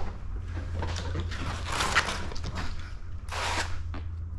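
Slip solution sprayed under lifted paint protection film: a short hiss of spray a little over three seconds in, after the film crinkles and rustles as it is pulled back off the hood. A steady low hum runs underneath.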